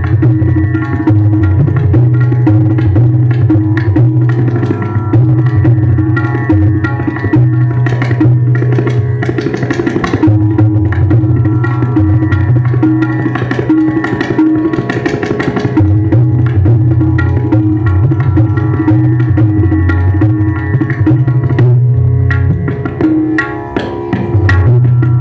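Instrumental background music with drum percussion over steady, changing bass notes.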